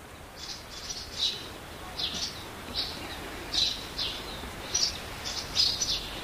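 Birds chirping in the background: short high chirps, roughly two a second and irregularly spaced.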